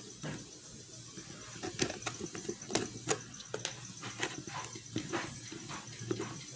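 Irregular light clicks and crackles of plastic being handled, several a second, as flowers are fitted one by one into a vase cut from a plastic soft-drink bottle.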